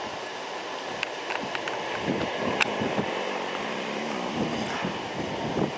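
Airbus A330-300 airliner taxiing past at a distance: steady jet engine noise, with wind buffeting the microphone in gusts and a few sharp clicks.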